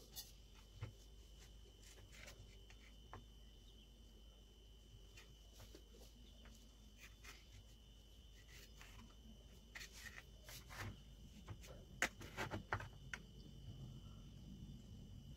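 Faint clicks and scrapes of a knife against a metal tray as pieces of set khoya are cut and lifted out, most of them about ten to thirteen seconds in.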